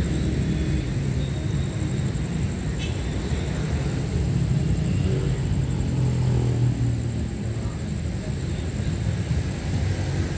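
Diesel engine of a D19E diesel-electric locomotive running with a low, steady rumble that grows a little louder around six seconds in, as the train approaches slowly.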